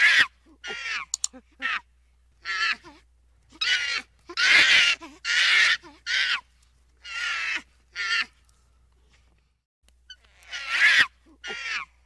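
A series of loud animal calls, about a dozen, each up to about a second long, coming at irregular intervals with a pause of about two seconds near the end.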